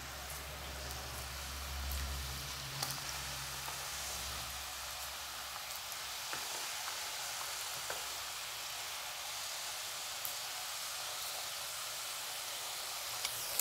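Wheat-flour biscuit dough pieces deep-frying in hot oil in a kadai: a steady sizzling hiss, with a few faint clicks.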